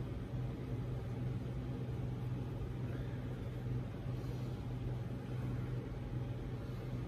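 Steady low hum over a faint even hiss: the room's background noise, with no distinct event.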